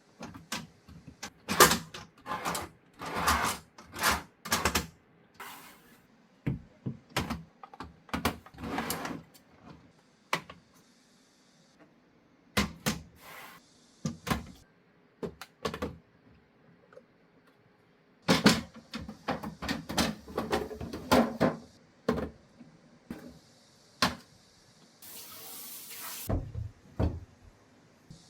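Refrigerator doors, drawers and storage containers being handled. Scattered knocks, clicks and clatter come in irregular clusters, with a brief hissing rustle near the end.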